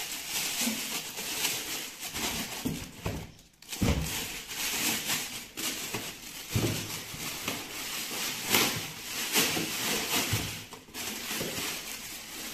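Clear plastic bag around a boxed solar inverter rustling and crinkling as it is handled and pulled off, with a few dull bumps against the cardboard box and foam packing.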